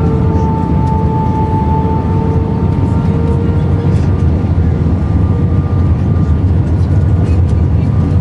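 Airbus A319 on final approach with gear down and full flaps, heard inside the cabin: a steady rush of airflow over a deep engine rumble, with a steady engine tone that fades about two seconds in.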